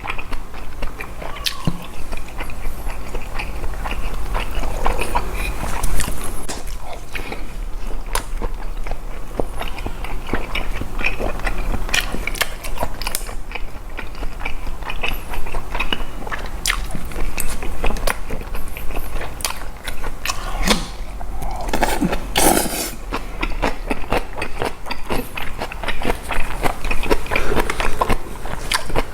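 Chewing and biting through a mouthful of boiled pork bossam with fresh napa cabbage kimchi and rice, with many short crisp crunches.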